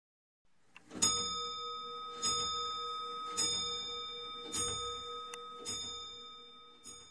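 A bell struck six times, about once a second, each stroke ringing on over the last and slowly fading.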